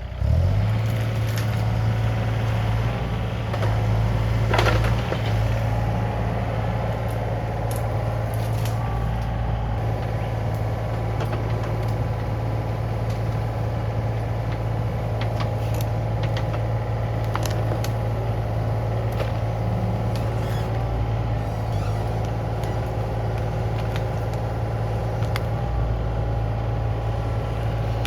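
Yanmar ViO35-6A mini excavator's three-cylinder diesel engine running steadily, its level jumping up just after the start as it is throttled up and rising briefly a few seconds in. Scattered metallic clanks and knocks sound over it.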